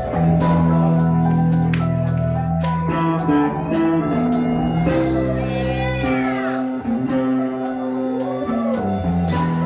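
A live band playing: electric guitar with sliding, bending notes over sustained bass notes and a steady drum beat.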